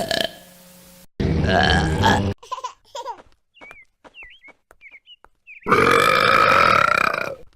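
A cartoon female character belching twice: a short, loud belch about a second in and a longer, pitched belch near the end. Faint short high chirps come between them.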